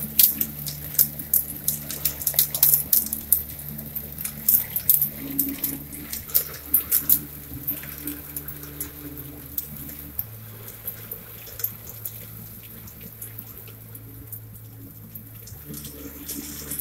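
Hail and rain striking a window and the ground: a dense patter of sharp ticks over steady rain, thinning out after about eight seconds, with a low steady hum underneath.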